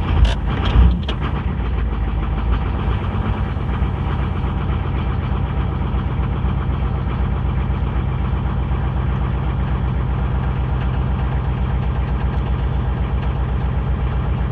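1996 6.5 L Detroit turbo-diesel V8 just after a cold start, running unevenly with a few sharp clatters for about the first second, then settling into a steady, rhythmic idle. Heard from inside the cab.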